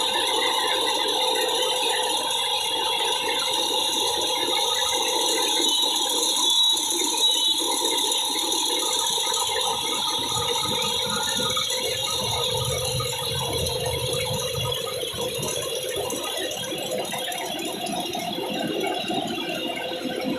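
Rice harvesting machine running steadily, a continuous mechanical rattle with a steady whine over it.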